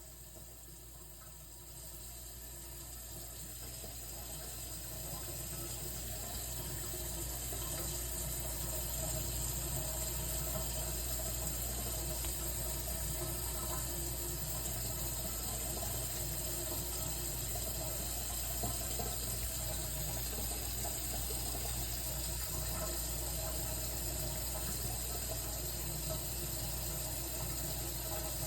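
A steady rushing hiss with no speech, growing louder over the first eight seconds or so and then holding level.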